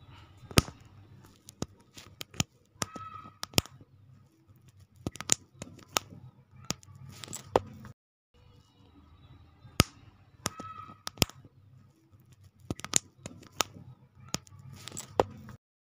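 Small plastic building bricks of an HA Toys Puzzle Car kit clicking and knocking as they are pressed together and turned in the hands: sharp, separate clicks scattered throughout, with soft handling noise between them.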